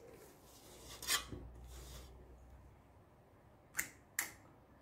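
Metal cookie scoop scraping through dough in a stainless steel bowl, then two sharp clicks near the end as the scoop's squeeze handle is worked to release a ball of dough onto the baking mat.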